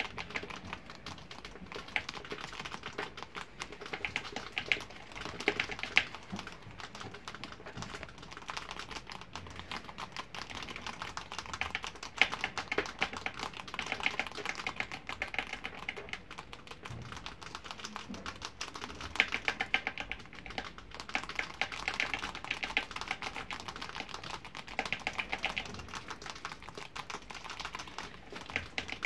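Pet rats gnawing and crunching dry, uncooked bow-tie (farfalle) pasta: rapid crisp clicks and crackles that come in bouts of a few seconds, with short lulls between.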